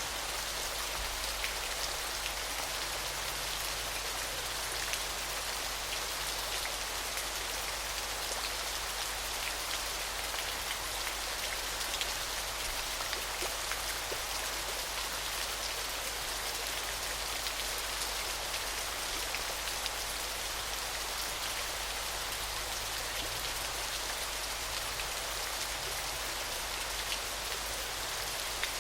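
Steady hiss of falling water with a fine patter of many small drops striking a surface, much like rain.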